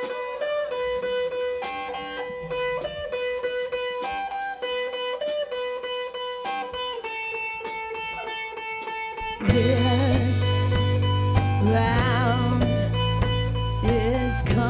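A red semi-hollow-body electric guitar plays a riff alone, one note after another. About nine and a half seconds in, the rest of the rock band comes in with bass and drums, and the music gets much louder.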